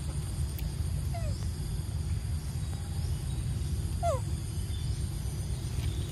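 Two short squeak-like animal calls, each falling in pitch, about a second in and again about four seconds in, over a steady low rumble and a faint high whine.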